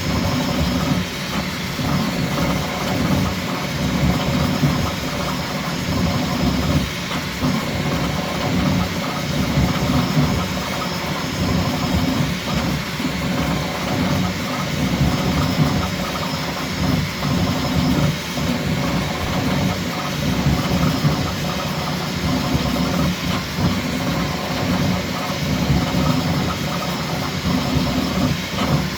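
Bambu Lab X1C 3D printer printing at high speed: a steady mechanical whir from its stepper motors and cooling fans, flickering rapidly as the toolhead moves.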